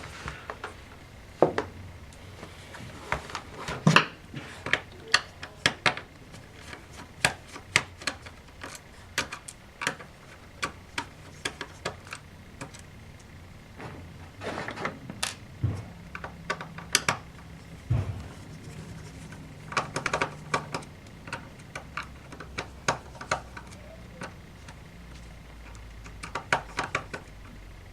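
Irregular sharp clicks and taps of a Phillips screwdriver working screws out of a laptop's plastic case, with small knocks as the case and parts are handled.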